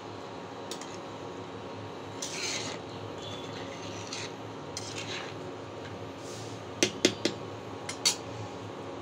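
Metal spoon stirring and scraping through thick dal in a karahi, then a few sharp clinks of the spoon against the pan about seven to eight seconds in. A steady low hum runs underneath.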